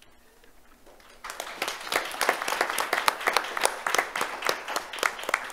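Audience applauding: after about a second of quiet, many people break into dense clapping that carries on to the end.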